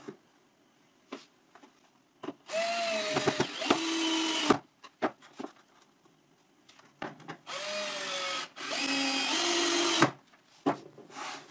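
Cordless drill-driver driving screws through a pine stop block into plywood: two runs of motor whine of about two seconds each, the pitch stepping down partway through each run. Short knocks of handling come between and after them.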